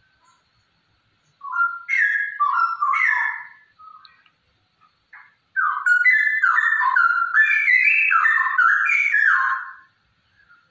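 Straw-headed bulbul (cucak rowo), a female by the uploader's account, singing: a short phrase of quick notes stepping up and down about a second and a half in, then a longer phrase of about four seconds from the middle. It is the female's call of the kind used to prompt male straw-headed bulbuls to sing.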